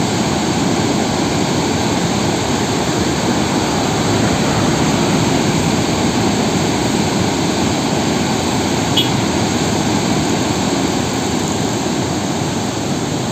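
Floodwater pouring over the stepped spillway of Mettur dam's 16-gate Ellis surplus: a loud, steady rush of white water.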